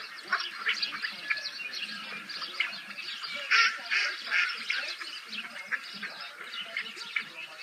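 Many birds chirping and calling in quick overlapping bursts from a bird video played over computer speakers, with a louder cluster of calls about halfway through.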